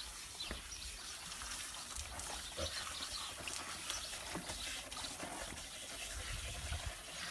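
Water spraying from a garden-hose nozzle onto a wet dog's coat and trickling into a plastic bathtub: a steady spray with small splashes and handling noises.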